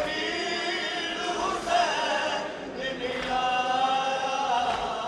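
Men's voices chanting a Muharram noha (mourning lament) together, holding long, slowly gliding notes.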